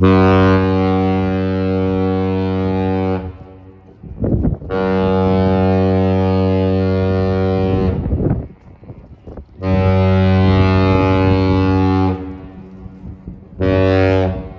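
Lake freighter Joseph L. Block's ship horn sounding three long, loud, deep blasts of one steady pitch, then a short one near the end: the opening of the three-long, two-short master's salute.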